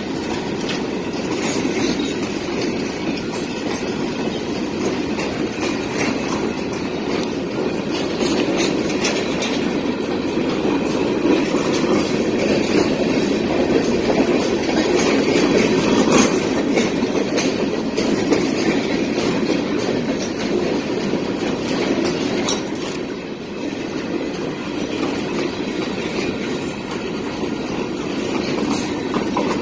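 Freight train's hopper cars rolling past at close range: a steady rumble of steel wheels on rail with scattered clicks and clacks.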